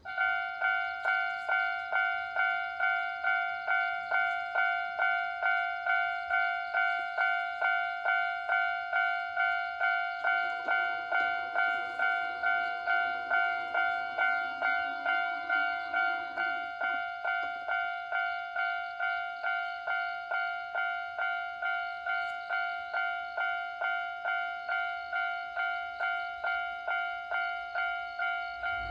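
Japanese railway level crossing's electronic warning bell, starting abruptly and then ringing steadily in an even ding-ding at about two strikes a second, signalling that a train is approaching.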